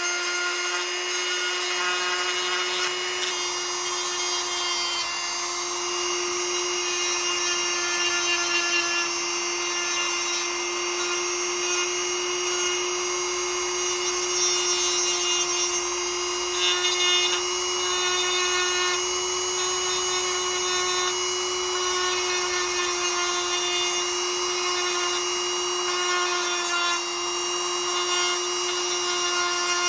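Handheld rotary tool running at a steady high speed, a steady whine, its small bit grinding against the steel of a small knife blade being shaped.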